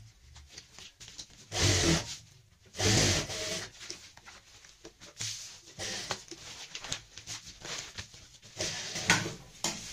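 Rustling and crinkling of cloth layered over a plastic sack as the layers are lifted, turned over and smoothed by hand. Two louder rustles come in the first few seconds, then softer ones, with another louder one near the end.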